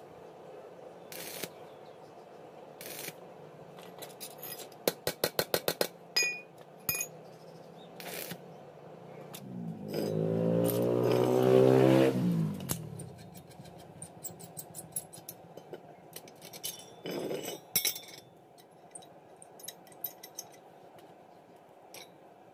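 Hand metalworking on a steel strip over a steel block: scattered metal taps and clinks, a fast run of about eight sharp clicks about five seconds in, then a loud grating squeal that falls in pitch over about three seconds, from about ten seconds in. Shorter scrapes and clinks of steel follow.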